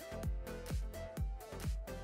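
Background electronic dance music: a steady kick drum about twice a second under held synth notes.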